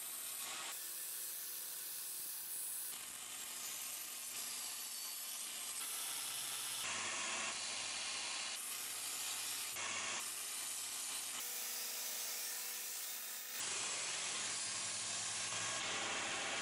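Homemade belt grinder running, its abrasive belt grinding the steel blade of a Bowie knife with a steady rasping hiss over the hum of its electric motor, as the blade's profile is corrected. The sound changes abruptly every few seconds.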